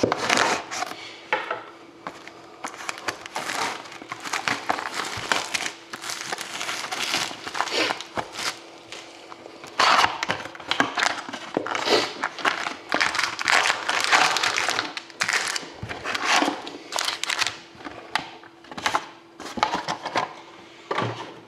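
Plastic shrink wrap on a cardboard trading-card box being slit with a knife and torn off, crinkling and crackling in irregular bursts, followed by the cardboard box being opened and its foil card packs handled.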